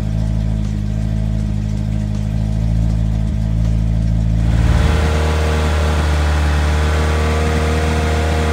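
Toyota 2ZZ-GE 1.8-litre four-cylinder engine in a Lotus Elise, held at a steady raised speed of about 2,000 rpm on its first start with a new hardened intake camshaft: the camshaft break-in run. About halfway through the sound turns brighter and fuller, heard from behind the car at the exhaust.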